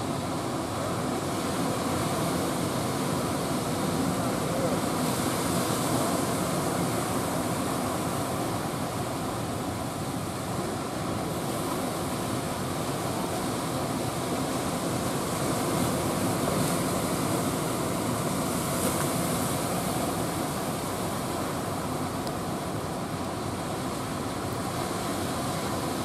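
Sea surf breaking and washing in steadily, with the hiss of breaking water swelling twice, about five seconds in and again past the middle.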